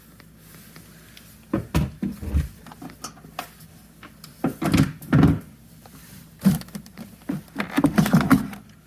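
Plastic air filter box of a CFMOTO 500S ATV being worked open by hand: knocks, clunks and scrapes of the plastic lid and clips, coming in four short bursts.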